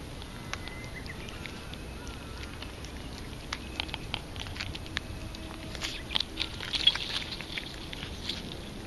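Calico cat eating wet canned cat food: irregular wet chewing and smacking clicks that come thicker and louder about six seconds in.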